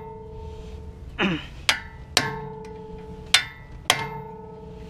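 A hammer strikes a hand impact driver four times. Each blow is a sharp metallic hit that rings on briefly, in two pairs about half a second apart.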